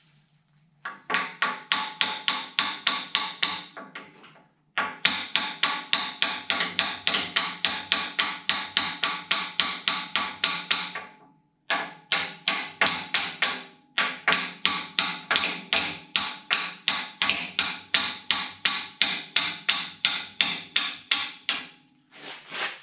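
Hammer blows on a metal fitting, driving it onto the end of a snowblower auger shaft: steady, rapid strikes about three or four a second with a faint metallic ring, in four runs with brief pauses between.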